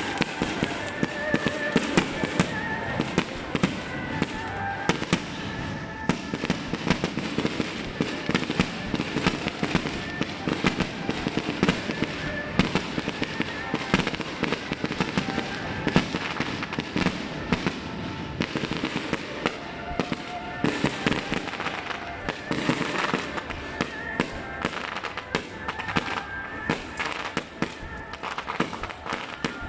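Fireworks going off in a dense, continuous barrage of sharp bangs and crackles.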